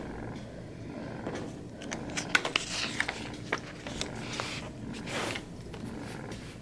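Paper rustling and swishing as the pages of a spiral-bound notebook are turned and handled, with a few light clicks and taps around the middle.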